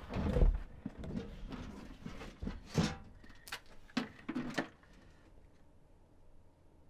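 A series of knocks and bumps, the loudest a heavy thump about half a second in, followed by several sharper knocks, then quiet after about five seconds.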